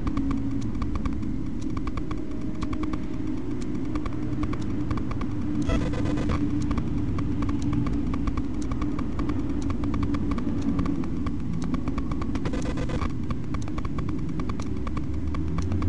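Convoy of military trucks and pickups driving past on a highway: a steady rumble of engines and tyres, with two louder vehicles passing close by about six and thirteen seconds in.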